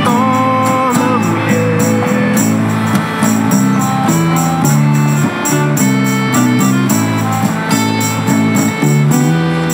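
Small acoustic band playing an instrumental passage: piano accordion chords changing about every half second, strummed acoustic guitar, and a tambourine jingling in a steady quick beat.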